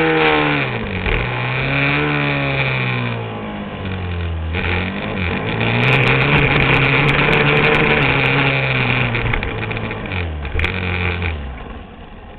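Supermoto motorcycle engine at race pace, heard onboard: its pitch climbs and drops several times as the throttle opens and closes through the gears and corners, over wind rush on the microphone. Near the end the engine note falls away as the throttle is shut.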